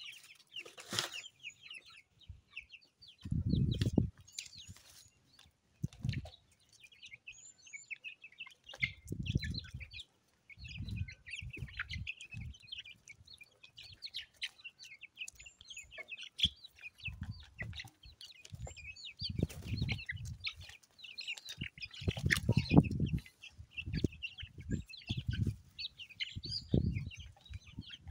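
A flock of young chicks cheeping constantly in quick, high chirps as they feed together at a feeder. Short low rumbles come every few seconds and are the loudest sound.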